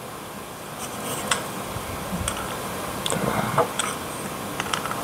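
Plastic clicks and handling noise as the pieces of a model aircraft's plastic display stand are fitted together by hand, with several sharp ticks at irregular intervals.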